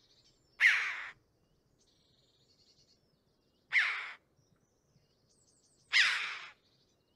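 Red-billed chough calls from a recording made in an alarm context: three loud, harsh calls about two to three seconds apart, with fainter high, rapid notes between them.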